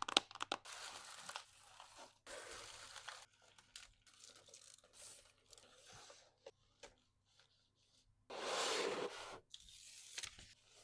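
Packaging being handled by hand: crinkling and rustling with sharp clicks, and a louder rustle about a second long near the end.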